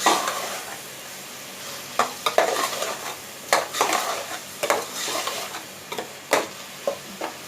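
Chicken, onion and tomato filling sizzling in oil in a pan on high heat while it is stirred, the utensil scraping and knocking against the pan every half second to second.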